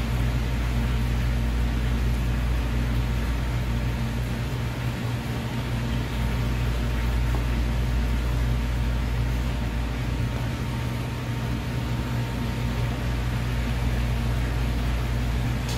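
Steady low machine hum with a constant noise over it, unchanging throughout.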